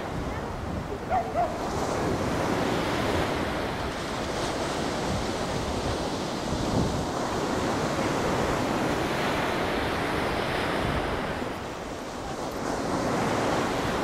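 Wind buffeting the microphone over the sound of sea surf, a steady rushing noise that dips briefly near the end, with two short high notes about a second in.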